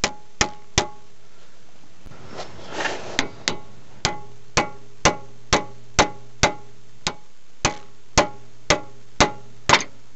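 Hand hammer striking a steel pickle fork wedged into the Pitman arm's tapered joint at the center link, metal-on-metal blows about twice a second, each with a bright ring, to force the joint apart. The blows pause briefly about a second in, then resume steadily.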